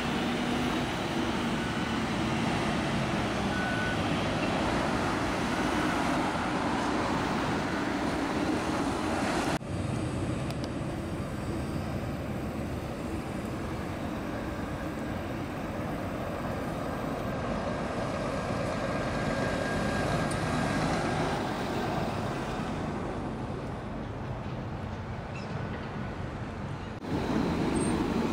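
Street traffic noise with a tram running past on its rails, a steady rumble of city vehicles. The sound changes suddenly about a third of the way in and again near the end.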